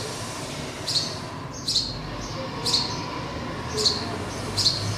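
A small bird chirping over and over: five short, sharp, down-slurred chirps, about one a second.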